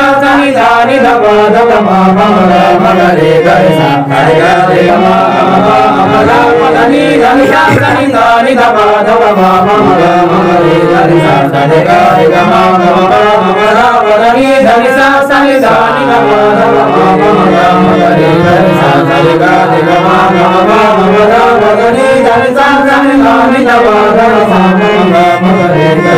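A man singing in a wavering, sliding voice while accompanying himself on a harmonium, whose reed notes sound under and along with his melody.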